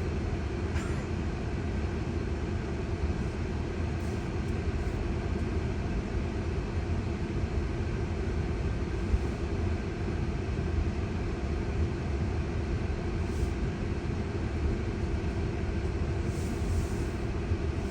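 Steady low road and tyre rumble heard inside the cabin of a moving Tesla electric car, with no engine note.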